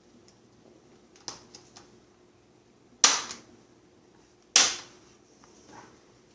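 Plastic clips of a laptop's cover plate popping free as it is pried off: a few light clicks, then two loud sharp snaps about a second and a half apart.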